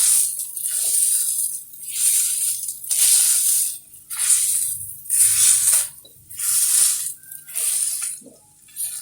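A spatula scraping and mashing boiled potatoes in a frying pan, in rhythmic scraping strokes about once a second, to break the potatoes into crumbs for the bread chop filling.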